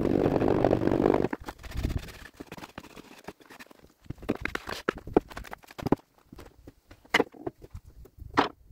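Gritty scraping of a sand-packed wooden core box rubbed over a board for about a second and a half, then scattered knocks and clicks as the box is handled, with two sharper knocks near the end.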